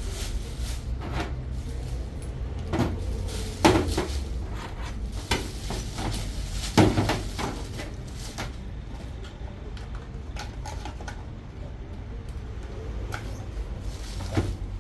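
Scattered clinks and knocks of metal plumbing fittings and tools being handled during pipe work, with two sharper knocks about four and seven seconds in.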